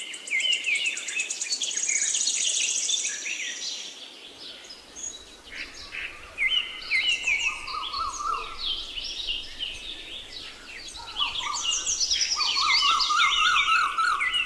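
Several birds singing and chirping at once in a forest dawn-chorus style, with overlapping quick trills and repeated notes. A high, fast-pulsing insect buzz runs under them for the first few seconds and again near the end.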